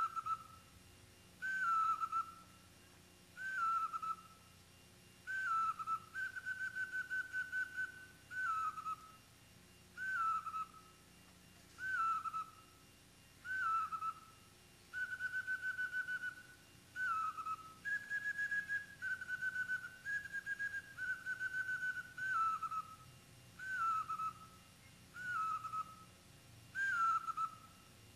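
A lone high flute in traditional Indonesian music, playing short falling two-note phrases about every two seconds. A few notes are held longer with a fluttering tremble.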